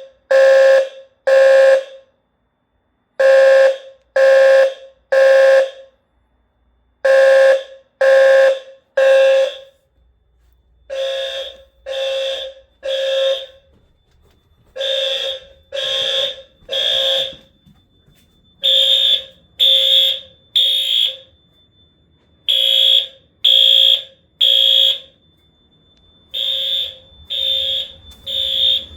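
Fire alarm horns sounding the temporal-3 evacuation pattern: three half-second tone pulses, a pause of about a second and a half, and again, over and over. A lower tone near 500 Hz is loudest at first; about ten seconds in, a higher tone joins the pulses, and a faint steady high tone carries on between the groups.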